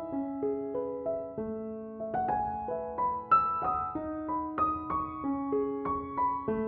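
Background music: a gentle piano melody, single notes and chords struck a few times a second and left to ring.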